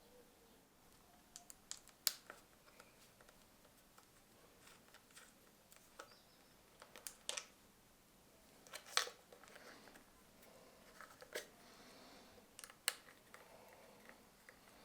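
Scattered sharp clicks and taps of tools and parts being handled while assembling an electric scooter, about nine in all, with faint handling noise between them.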